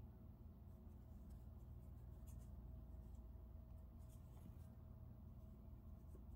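Very faint rasps of a metal crochet hook drawing yarn through stitches, a few short scratches over a steady low hum.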